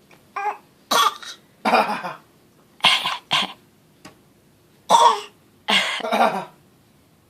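A person putting on fake coughs: about seven short, separate coughs, some in pairs, spread over several seconds.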